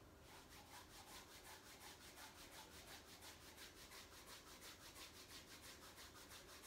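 Palms rubbing up and down over the face, a faint, even swishing of quick strokes, several a second.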